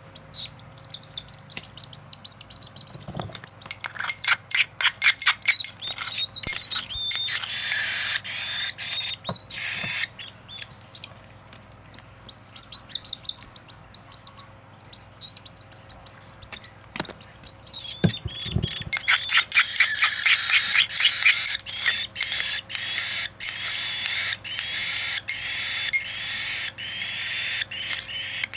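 Cockatiel chick giving begging calls while being hand-fed formula: strings of short, high, repeated chirps and wavering calls, with a quieter stretch in the middle, then a steady run of evenly spaced calls near the end.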